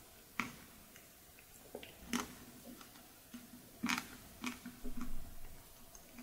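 Close-miked mouth eating perilla-leaf chocolate-chip ice cream: a string of wet clicks and smacks at irregular intervals, the sharpest about two and four seconds in, with a quick run of them near the end.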